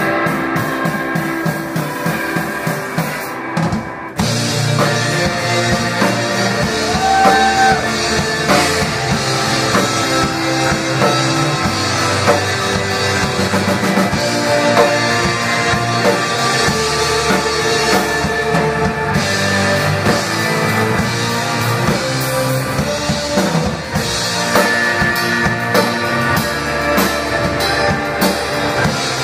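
Live rock band playing: electric guitars over bass, with the full drum kit coming in after a short break about four seconds in.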